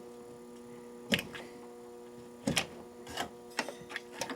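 A handful of sharp clicks and knocks as the battery cables are pulled off the terminals and the standby batteries are handled inside a fire alarm control panel, over a steady electrical hum.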